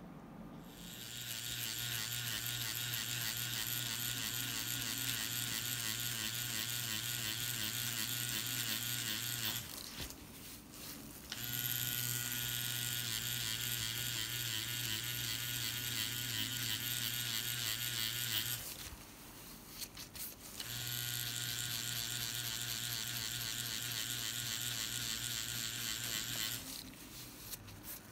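Cartridge tattoo machine buzzing steadily as it packs green ink into skin, in three runs of several seconds, stopping briefly twice.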